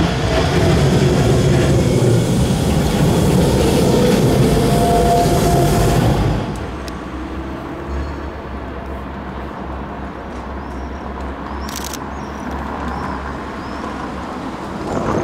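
Low-floor tram passing close, its wheels rumbling on the rails with a brief squeal as it takes the curve. About six seconds in this cuts to quieter street traffic noise, with a short hiss near the end.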